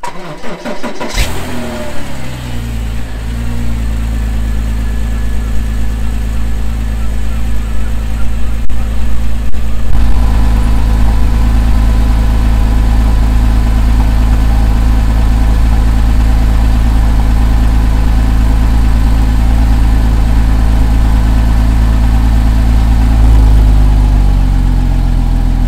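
Porsche Cayman 987 S's 3.4-litre flat-six exhaust on a cold start. The engine catches about a second in, then runs at a steady fast idle, and the idle note shifts slightly near the end. It sounds pretty smooth with no tapping, even though two cylinders have significant bore scoring.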